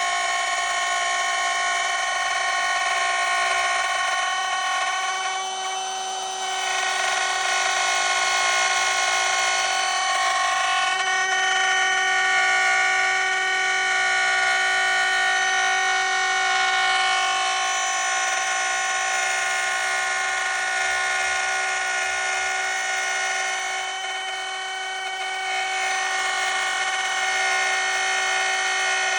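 Electric wood router running at high speed, a steady high-pitched whine with many overtones, dipping briefly twice, about six seconds in and again near twenty-five seconds.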